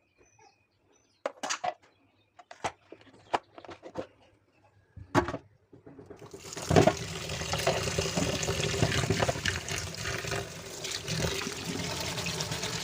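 A few scattered light knocks and clicks, then about six seconds in water starts running in a steady, loud rush.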